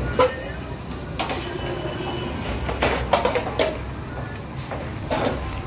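A takeaway food tray is handled and slipped into a plastic bag, and trays clatter on a shop counter: a few short knocks and rustles over a steady low hum.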